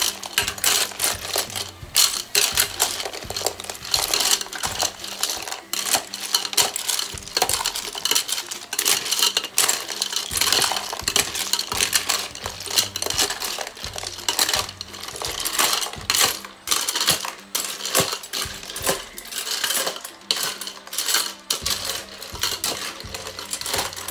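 Snail shells clattering and clinking against an aluminium pot and a metal spoon as the snails are stirred, a dense, irregular run of sharp clicks.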